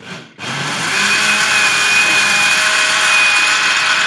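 Countertop blender switched on for a brief burst, stopping for a moment, then running steadily with a high whine over its motor noise as it blends a milky drink in its glass jug.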